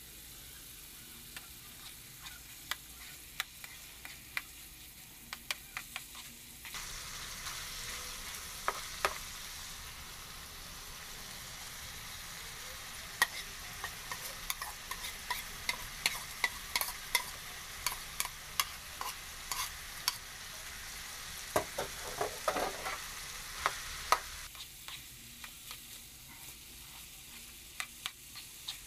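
Ground meat with diced carrots and potatoes sizzling in a frying pan while a spatula stirs it, with many sharp clicks and scrapes of the utensil against the pan. The sizzle grows louder through the middle stretch and eases off near the end.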